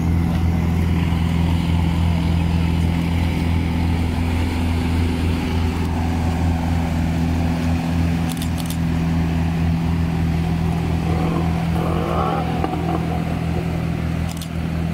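Lifeboat launch tractor's diesel engine running steadily as it pushes the lifeboat carriage through the surf.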